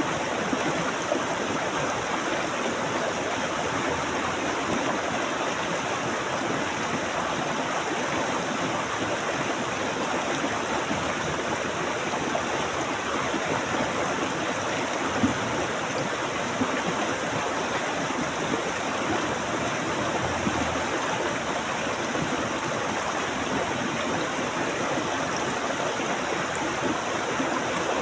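Flowing stream water rushing and splashing steadily, with no break.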